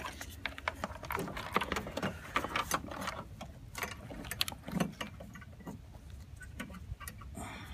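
Rapid, irregular plastic clicks and rattles as HID conversion kit parts and wiring are handled and fitted into a car's headlight housing.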